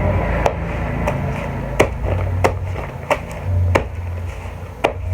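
A blade chopping through a banana stem: a series of sharp chops, about one every half second to a second.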